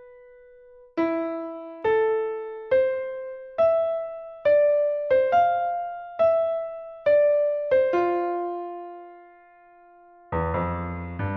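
Piano playing a slow single-note melody, each note struck about once a second and left to ring, settling on a long held low note. Near the end a loud, full chord with deep bass notes comes in.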